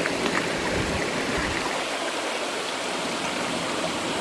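A shallow river running steadily over stones, a continuous even rush of water, with a few faint low knocks in the first couple of seconds.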